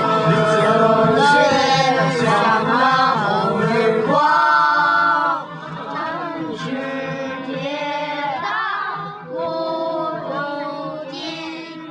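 A group of voices singing a song together, held sung notes rising and falling, with instrumental backing under the first five seconds; about five seconds in the sound drops to softer singing.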